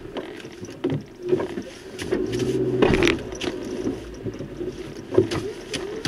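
Vehicle engine running steadily while driving slowly, with frequent knocks and rattles from the bumps. It grows louder around two to three seconds in, with a sharp knock at the peak.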